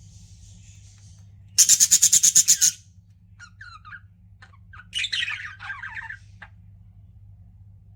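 Pet budgerigars chirping and chattering. A loud, rapid string of about ten chirps a second lasts about a second, followed by scattered soft chirps and a burst of warbling chatter, and the birds fall quiet near the end.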